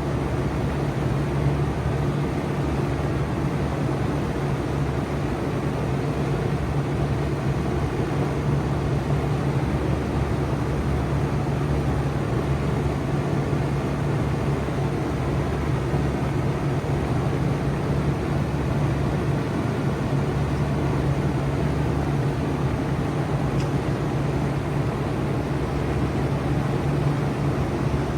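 Four-ton Bard wall-hung heat pump running steadily in cooling mode: a steady low hum under an even rush of fan air.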